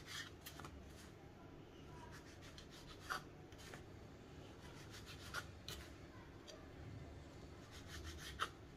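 Kitchen knife cutting the crusts off slices of white bread on a wooden chopping board: faint rubbing and scraping of the blade through the crust and against the board, with a few short louder scrapes.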